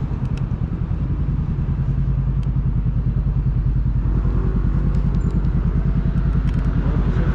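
Wind buffeting the microphone and road rumble while riding a Dualtron Victor electric scooter: a low, fluttering rush that grows a little louder after about two seconds, with a few small clicks and rattles.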